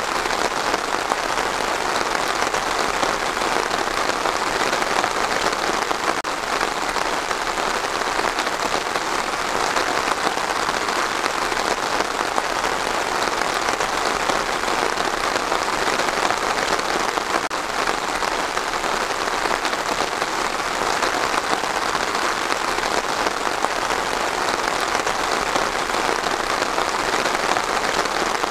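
Steady rain falling on trees, an even hiss with no breaks.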